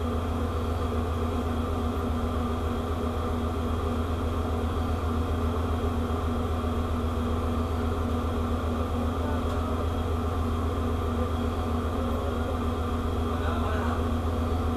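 Steady drone of a ship's running machinery: a deep hum with several constant tones over it, holding an even level.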